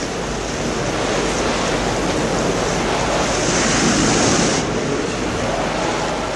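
Sound effect of sea waves washing, swelling to a louder surge about three and a half seconds in.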